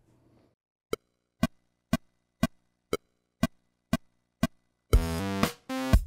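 Pro Tools metronome click track ticking eight times, about two clicks a second, then two MIDI loops from synced Pro Tools systems kick in about five seconds in, playing synth and drum-machine parts together.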